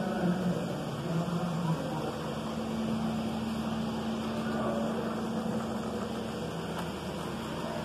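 Supermarket ambience: a steady hum of store machinery such as refrigerated cases and ventilation, with a low steady tone through most of it.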